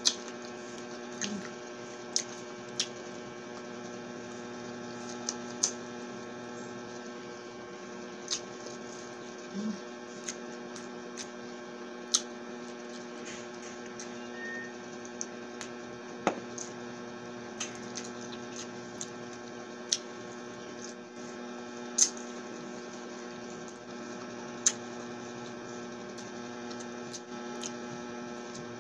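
Close-up eating sounds: irregular sharp clicks and smacks from chewing chicken adobo eaten by hand. Under them runs a steady electrical hum.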